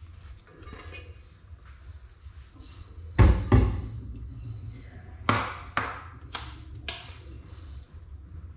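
Kitchen handling sounds while food is dished onto a plate: two heavy thumps on the counter about three seconds in, then four sharp taps over the next two seconds, like a utensil knocking against a dish.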